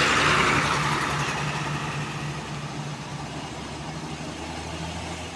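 AKAS intercity coach's diesel engine running as the bus drives off, a steady low hum under a rushing noise that fades as the coach moves away.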